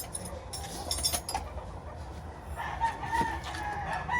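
A rooster crowing: one long, drawn-out call that starts about two and a half seconds in. It follows a few sharp clicks in the first second and a half.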